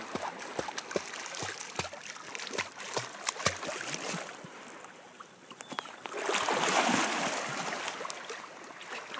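Lake water splashing and sloshing as a dog swims close by, with many small splashes, then a louder rush of splashing about six seconds in that lasts around two seconds.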